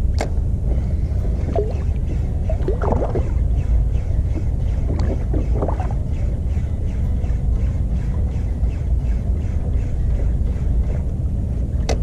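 Small 2-horsepower outboard motor running steadily on a kayak, a constant low rumble.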